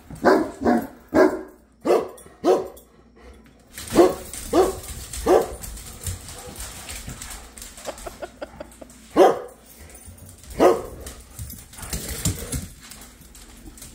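A dog barking in short, sharp barks: a quick run of about five at the start, three more a few seconds later, then two single barks near the middle. This is excited play barking during a game of fetch.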